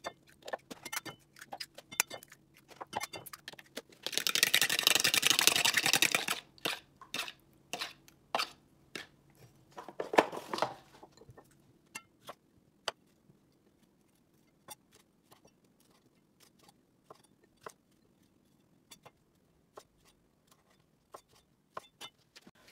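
Eggs cracked into a mixing bowl with sharp taps, then beaten briskly for about two seconds, a fast run of strokes against the bowl and the loudest sound here. Later, a knife cutting tomatoes on a wooden chopping board, single taps a second or more apart.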